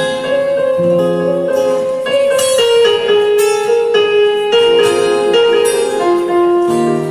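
Yamaha digital keyboard in a piano voice and an acoustic guitar playing a slow instrumental together, held chords under a simple melody.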